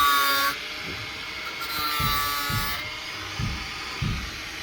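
Electric chainsaw chain sharpener running with a high whine that dips in pitch as the grinding wheel is loaded, with short stretches of grinding hiss. About five dull knocks follow in the second half, roughly one every half to one second.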